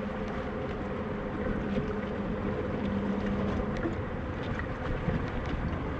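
Wind buffeting the microphone over water lapping against a small fishing boat, with a low steady motor hum that fades out a little over halfway through.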